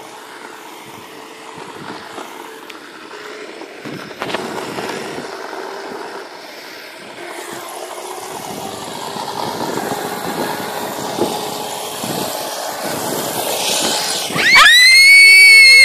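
Wind and riding noise from a bicycle, rushing on a phone's microphone and slowly growing louder. Near the end a sudden, very loud high-pitched squeal with a wavering pitch cuts in.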